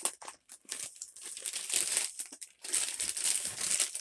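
Packaging crinkling and tearing in irregular crackly bursts as a box of disposable gloves is pulled open by hand, busiest in the second half.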